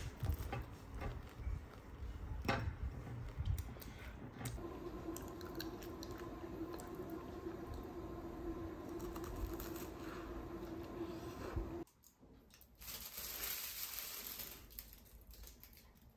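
A crusty caramelized pastry being torn apart by hand, its crust crackling and crunching in scattered clicks. A steady low hum runs through the middle. After a sudden cut, about two seconds of rustling hiss follow.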